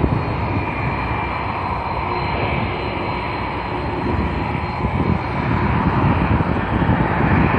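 Airbus A330-200 airliner's twin jet engines running during its landing rollout on the runway, a steady rushing noise with a faint high whine. Wind gusts on the microphone.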